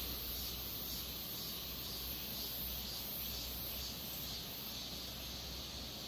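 Steady rush of stream water, with insects trilling in a high, pulsing band above it.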